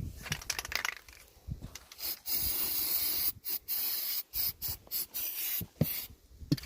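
A hissing spray in a run of short bursts, broken by brief gaps, for about four seconds, after a few clicks. A low knock comes near the end.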